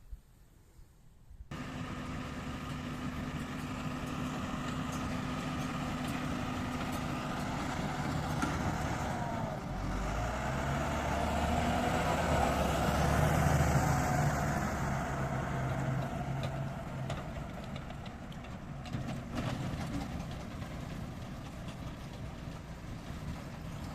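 Tractor engine running steadily while working hay. It cuts in sharply about a second and a half in, grows louder toward the middle, then eases off a little.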